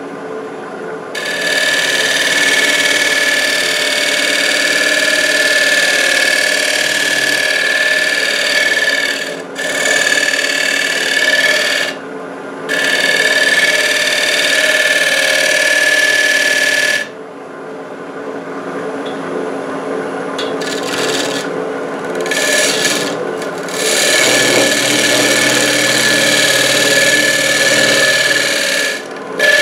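Wood lathe spinning a wooden urn while a hand-held turning tool scrapes the painted foot back to bare wood: a rasping cut with a steady high whine under it, in long passes broken by short pauses. About two-thirds of the way through, the cutting mostly stops for several seconds, leaving the quieter hum of the lathe, then resumes.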